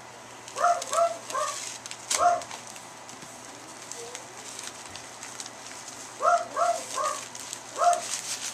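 A small dog barking in two bursts of four short, high yaps, about a second in and again near the end, over the clicks and rustle of a package being cut open with scissors.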